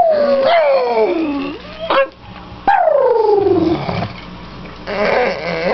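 Pug howling with excitement in greeting, very happy to see her owners: two long howls that each slide down in pitch, then a rougher, noisier call near the end.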